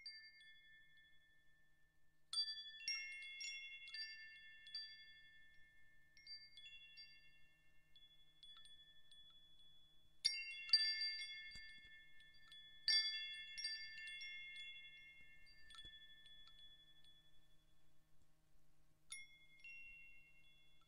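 Wind chimes ringing: a few fixed high notes struck in irregular clusters, each note ringing on for several seconds. The loudest clusters come about halfway through and a few seconds later, with a last soft stroke near the end.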